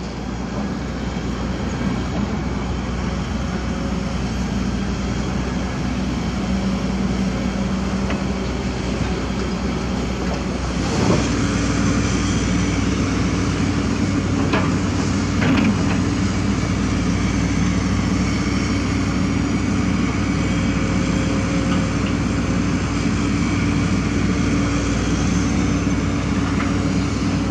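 Diesel engines of excavators and a rotary drilling rig running steadily. About 11 seconds in the sound shifts to a steadier low drone, with a couple of short knocks a few seconds later.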